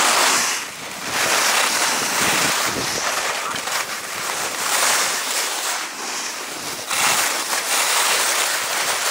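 Skis hissing and scraping over snow through a run of turns, the hiss swelling and easing every second or two, with wind rushing over the action camera's microphone.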